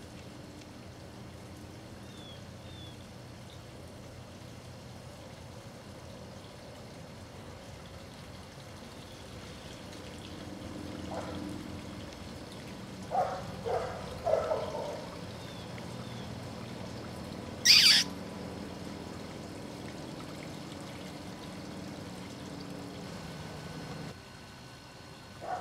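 Month-old Sarplaninac puppies whimpering in a few short, high-pitched calls over steady outdoor background noise, with faint bird chirps early on. A brief, sharp hissing noise stands out about two-thirds of the way through.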